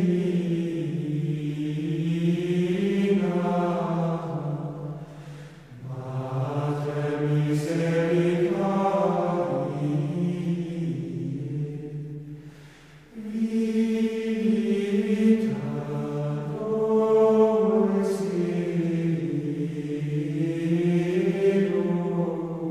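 Background music: a choir chanting slowly in long held phrases, with two short breaks between phrases.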